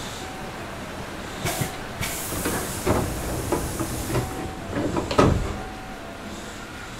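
Hankyu 8000 series electric train standing at a platform: a hiss of released compressed air lasting about two seconds, together with a run of knocks and thumps. The loudest thump comes about five seconds in.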